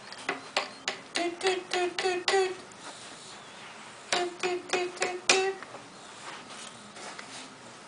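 A toy's electronic sound plays two runs of five short notes, all at one pitch and about three a second, with a couple of clicks before the first run.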